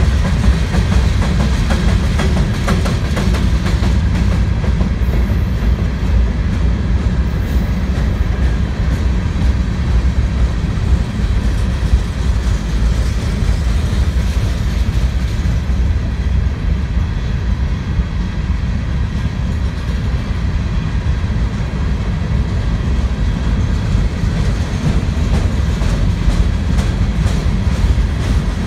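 Freight train's hopper cars rolling past at speed: a steady, loud low rumble of steel wheels on rail with rapid clicking from the wheels over the track.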